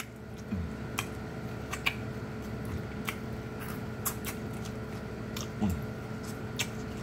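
Biting and chewing corn on the cob close to the microphone: a string of sharp, crisp crunches as the kernels are bitten off the cob, with wet chewing between them.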